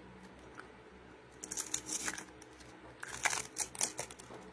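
A plastic toy slime bottle being opened: crinkly crackling and tearing of its seal in two short bursts, the first about one and a half seconds in, the second about three seconds in.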